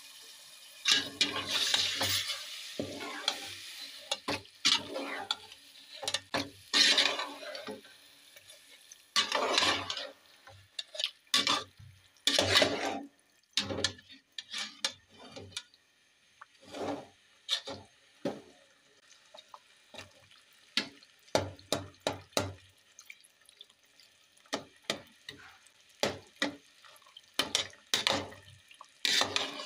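A metal spatula stirring diced bottle gourd in hot oil in a metal pot, with irregular scrapes and knocks against the pot and some frying sizzle.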